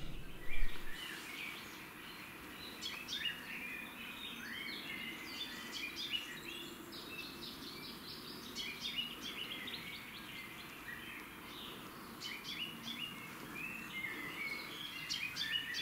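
Small songbirds chirping and singing in many short, quick phrases, over a faint steady hiss of outdoor background noise.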